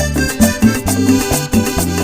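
Instrumental break of a Latin tropical dance song played by a band with accordion and violin: a bass line and percussion keep a steady dance beat under held melody notes, with no singing.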